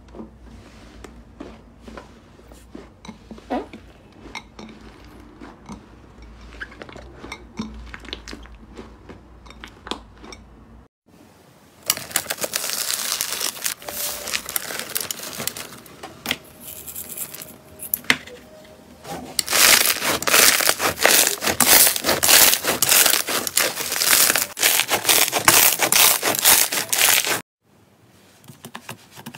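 Slime being squeezed and stretched by hand: scattered sticky clicks and pops at first, then, after a cut, dense crackling that gets louder about two-thirds of the way through and stops abruptly near the end.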